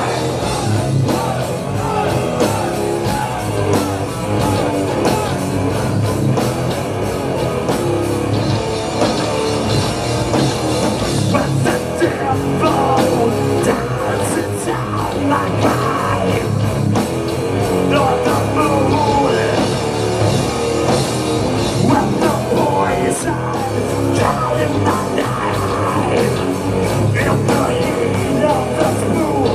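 Rock band playing live: electric guitars and drums under a singer's vocals into the microphone.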